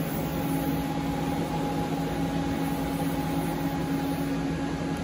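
CNC lathe running with a steady machine hum and a few steady low tones.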